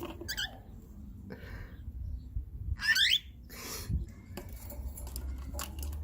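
Cockatiel chirping: a short whistled call near the start and a louder, curving chirp about three seconds in, with a few brief scratchy rustles between them.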